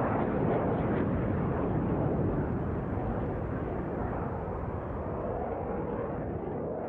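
Military jet's engine noise during an airshow display, a steady, dense roar that eases off a little partway through.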